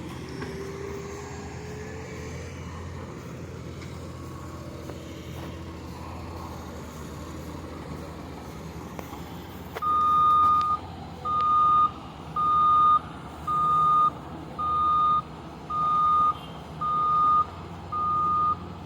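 Heavy machine's reversing alarm beeping about once a second, starting about ten seconds in, over a steady low engine rumble.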